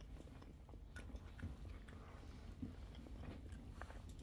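Faint chewing of shrimp: scattered small mouth clicks and smacks over a low steady hum.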